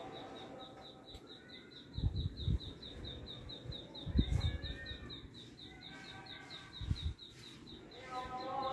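A bird chirping over and over, a short falling chirp about five times a second at an even pace. Low thumps about two, four and seven seconds in are the loudest sounds.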